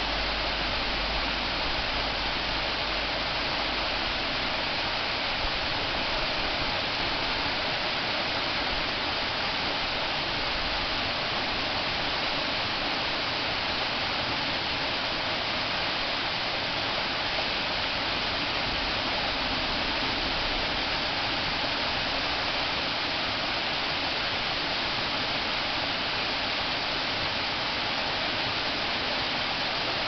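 Waterfall cascading down a sloping rock face: a steady, even hiss of falling and splashing water.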